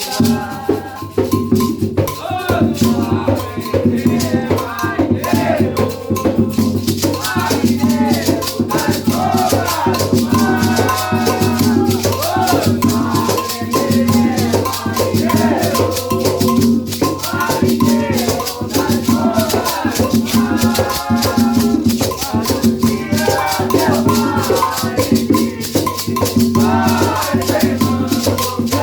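An Umbanda ponto (sacred chant) sung by a voice over a shaken rattle that keeps a steady, dense beat.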